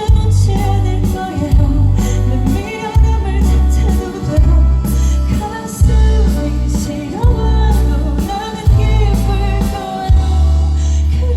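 Live band playing a pop ballad with a female vocalist singing over it, with heavy bass notes that change about every second.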